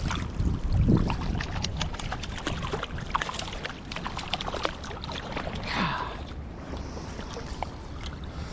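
A fishing reel being cranked while a hooked trout is played, giving a run of quick irregular clicks, over a steady low rumble of wind on the microphone and river water around the wading angler.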